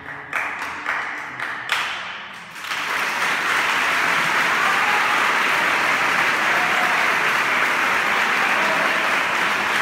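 A few last sharp percussive hits end the piece, then an audience bursts into steady applause from about three seconds in.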